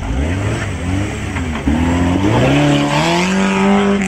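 Off-road 4x4's engine revving hard under load, its pitch climbing and getting louder from about a second and a half in, then held high.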